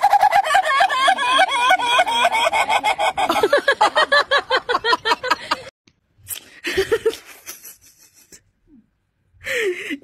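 Rooster giving a long, rapid cackling call: many short, bending notes in quick succession that sound like laughter, lasting about six seconds before stopping abruptly.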